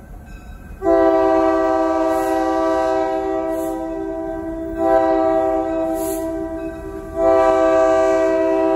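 Diesel locomotive air horn on the lead EMD GP10, several notes sounding together, blowing for a road grade crossing. The first long blast starts about a second in, and the horn swells louder again near the middle and near the end.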